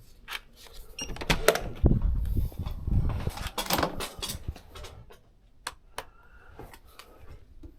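Footsteps and bumps of handling, then a few sharp clicks of a room door being unlocked and opened.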